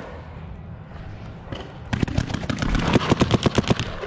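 Paintball markers firing in rapid strings, about ten sharp shots a second, starting about halfway in.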